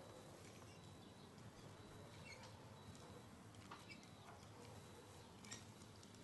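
Near-quiet outdoor ambience with faint, scattered taps from the tips of forearm crutches meeting the paved walkway, and a few small high chirps.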